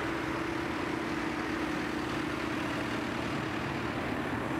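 A column of farm tractors driving past, their engines running with a steady hum over the noise of the convoy.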